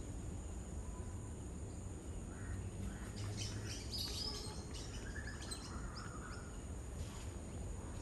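A flock of lesser whistling ducks calling: a flurry of short, high whistled notes from several birds between about two and a half and six seconds in, over a steady high insect drone.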